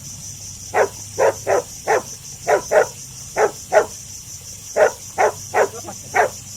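A man giving short, dog-like barking coughs, about a dozen in quick groups of two or three.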